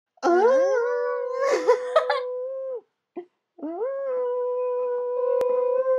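A man's and a girl's voices singing a long held note together, sliding up into it and holding it for over two seconds, then a second time in the same way.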